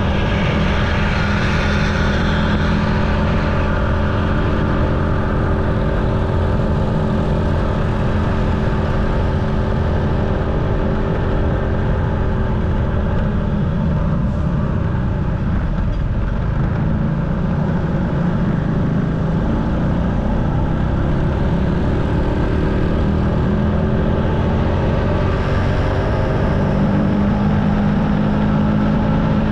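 Motorcycle engine running under way, its pitch shifting as the speed changes, over a low wind and road rumble.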